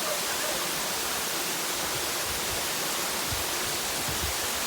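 Steady rush of flowing water, like a rain-forest stream or waterfall.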